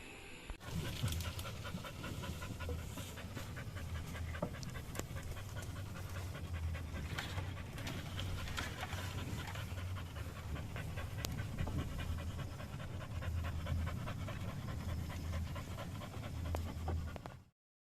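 A dog panting steadily, cutting off suddenly near the end.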